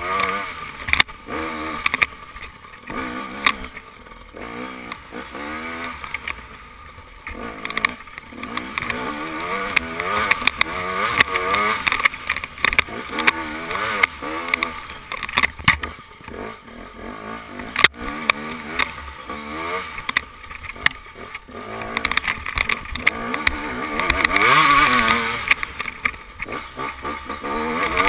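KTM dirt bike engine revving up and down over and over as it is ridden hard around a dirt track. It is heard from a helmet camera, with wind buffeting the microphone and frequent knocks from the bumps.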